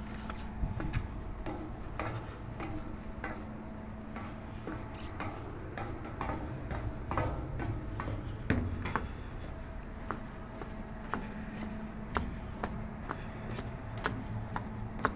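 Footsteps and small knocks on a ship's steel deck, irregular sharp clicks about twice a second, over a steady low hum from the vessel's machinery.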